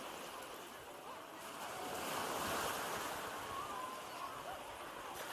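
Small sea waves washing in and running up over the sand at the water's edge, swelling a little about two seconds in and easing off again.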